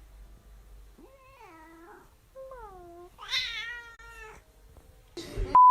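A cat meowing three times, each call falling in pitch, the third the loudest and longest. Near the end a sudden loud noise, then a steady electronic beep starts.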